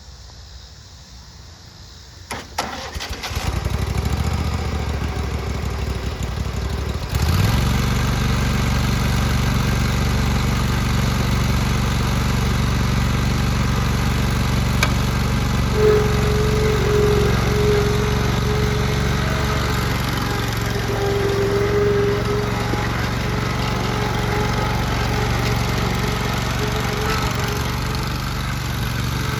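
Grasshopper zero-turn front-mount mower's engine cranked by its starter and catching about three seconds in, then throttled up to a higher speed about seven seconds in and running steadily, with a faint whine in the second half.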